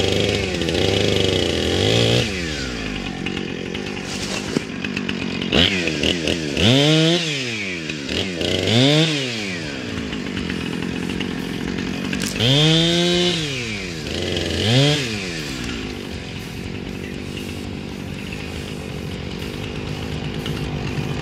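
Gas chainsaw cutting through small saplings, its engine revving up and back down in about four strong surges, then settling to a steady idle near the end.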